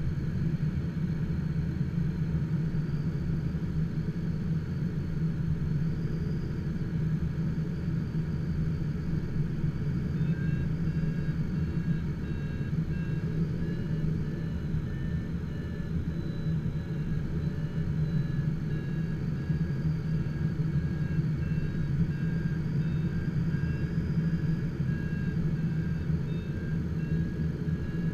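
Steady in-flight cockpit noise of an HK-36 Super Dimona motorglider: a constant low drone, with faint high tones that wander slowly in pitch.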